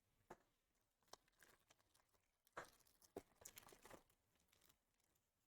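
Faint crinkling and light ticks of sports cards and their foil pack wrappers being handled. A denser stretch of crinkling comes about two and a half seconds in.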